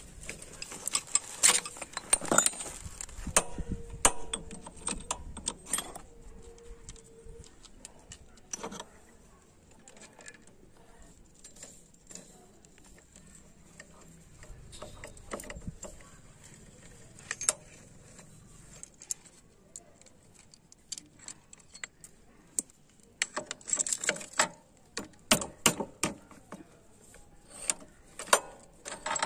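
Metal tools and steel clutch parts clinking and tapping as a motorcycle clutch is taken apart. The clicks come thickly in the first few seconds, thin out through the middle, and return as a dense run of clinks near the end as a tool is worked on the clutch centre nut.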